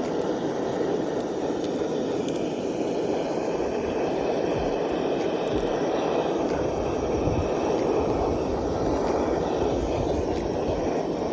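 Blowtorch flame running steadily with an even, unbroken noise while it burns the scales off an iguana's skin until they lift and separate.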